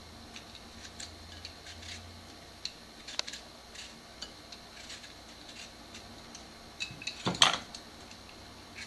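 Vegetable peeler scraping the skin off a raw red potato in short, soft strokes, with light clicks between them. A louder knock comes about seven seconds in.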